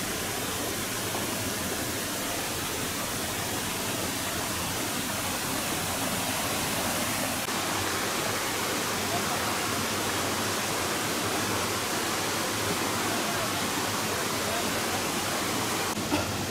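Creek water rushing steadily over rocks and small cascades, an even, unbroken rush.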